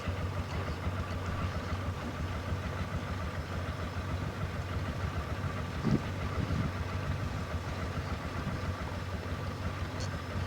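ATV (quad) engine idling steadily, with a single knock about six seconds in.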